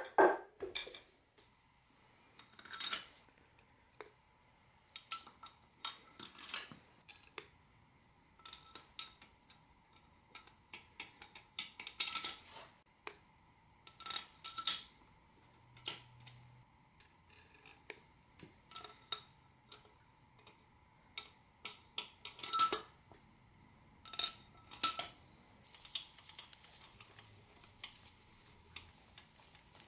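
A heavy thud as the aluminium engine crankcase is set down, then scattered metallic clinks and taps of case bolts, a socket and a long extension against the block as the bolts are fitted by hand.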